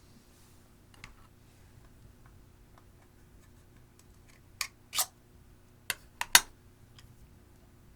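Sharp clicks and pops from handling slime and eyeshadow: one about a second in, then a quick cluster of five about halfway through, the last the loudest.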